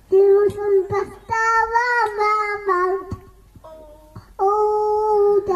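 A two-year-old boy singing a nursery rhyme into a microphone in long, held notes, with short breaks between them and a quieter stretch a little past the middle.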